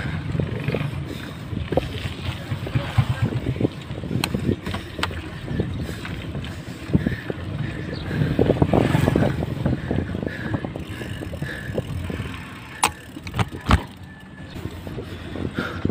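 Riding noise from a bicycle on a concrete road, recorded on a handlebar-mounted camera: wind rushing over the microphone and tyre rumble, with a few sharp knocks and rattles from the bike. The noise swells louder about eight seconds in.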